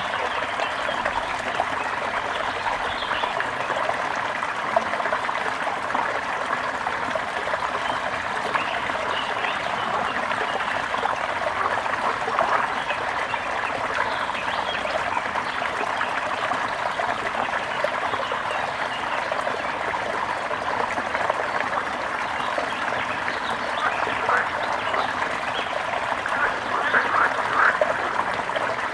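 Trickling water running steadily, with many small chirps over it throughout and a brief burst of louder chirps near the end.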